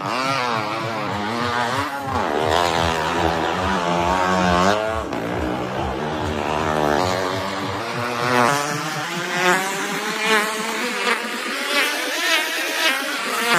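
Small motorcycle engines revving as they ride round the wooden wall of a well-of-death drum, their pitch rising and falling continually. From about halfway, the engine note swells and fades about once a second as the riders circle past.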